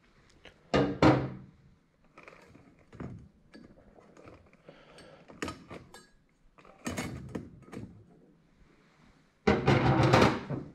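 Handling noise close to the microphone: scattered knocks and thunks with rustling, loudest about a second in and again in a dense stretch near the end as a hand comes right up to the lens.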